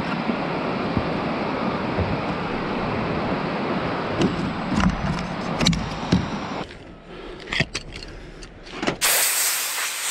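Steady rushing wind and surf noise with clicks and knocks of a leash and plastic fittings being handled on an inflatable paddleboard's deck. About nine seconds in, a loud hiss begins: air rushing out of the inflatable paddleboard's opened valve as it is deflated.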